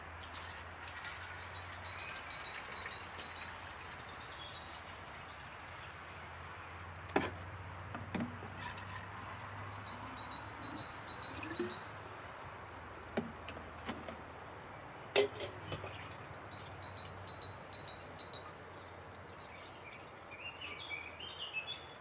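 Water being poured from a plastic jerrycan and a metal cup into a Kelly Kettle, with a few sharp knocks of the containers. A bird sings short rapid trills three times in the background.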